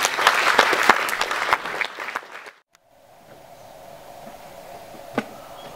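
Audience applauding, a dense clatter of many hands that cuts off abruptly about two and a half seconds in. After that the hall is quiet, with a faint steady hum and a single knock near the end.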